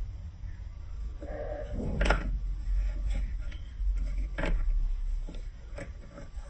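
Plastic building-block pieces clicking and knocking together as they are handled, in a few sharp, irregular clicks over a low rumble.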